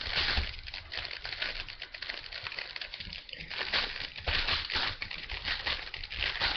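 3x3 speed cube being turned by hand, its plastic layers clicking and clacking in quick, irregular runs of turns.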